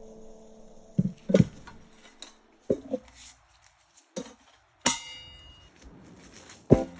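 Kitchen utensils and dishes knocking and clinking, about seven separate strokes with pauses between them. One clink about five seconds in rings briefly.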